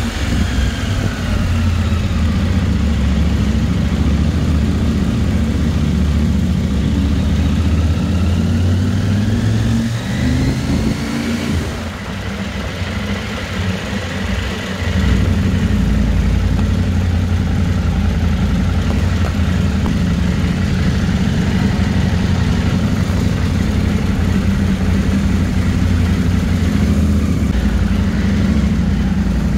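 KTM motorcycle engine running as the bike is ridden slowly through a concrete parking garage. Its pitch rises and falls with the throttle over the first dozen seconds, then it holds steady from about fifteen seconds in.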